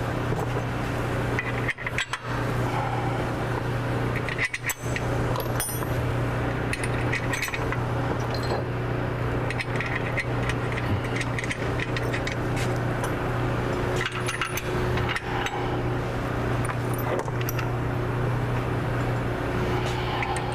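Scattered metal clinks and clicks of bolts, washers and backing plates being handled and started by hand into a steel bumper frame bracket, over a steady low hum.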